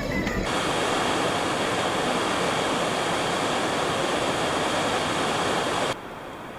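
Steady rush of the Pliva waterfall's falling water, cutting in about half a second in and stopping abruptly about a second before the end, leaving a quieter background.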